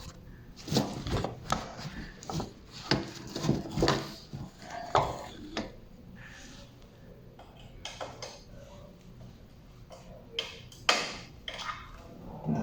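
Irregular clicks and clatters of small hardware and hand tools being handled, such as screws and a screwdriver. They come thick for the first half and more sparsely later, with a few sharp knocks near the end.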